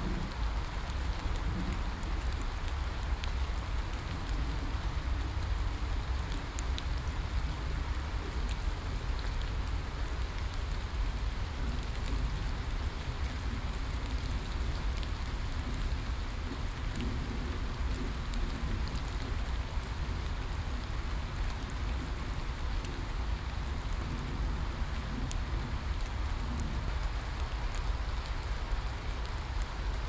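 Heavy rain falling steadily on tree leaves: an even hiss with scattered sharp drip ticks and a constant low rumble underneath.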